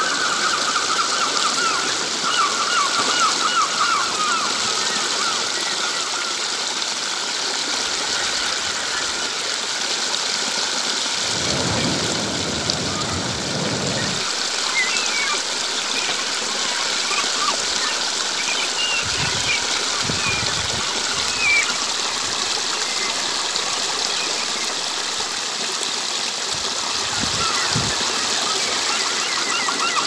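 Stream water splashing and trickling steadily over stones in a small cascade. Birds chirp now and then, most at the start and again around the middle. A low rumble rises for a few seconds about eleven seconds in, with shorter ones later.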